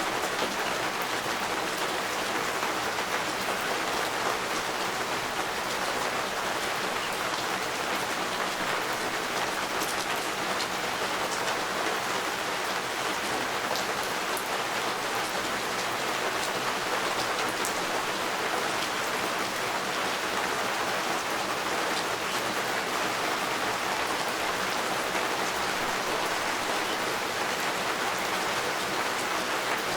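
Steady rain falling and pattering on a surface, with scattered individual drops ticking through it.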